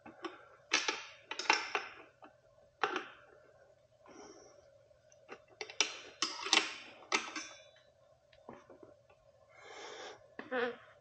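Irregular metallic clicks and scrapes of a front-wheel axle nut being threaded on and snugged down against the fork of a fat-tire e-bike, about a dozen short sounds spaced unevenly.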